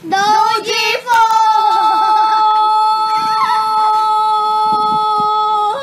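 A high voice, played back through the Tylex DY25 Bluetooth speaker, sings a few short sliding notes and then holds one long, steady high note for about four and a half seconds.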